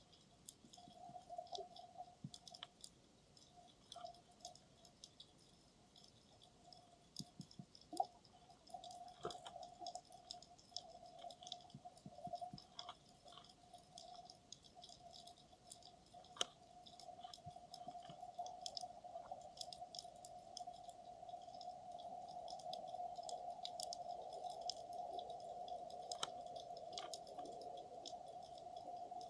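Faint underwater ambience picked up through a camera's dive housing on the seabed: an irregular scatter of sharp clicks and crackles, with a steady hum that grows louder over the second half.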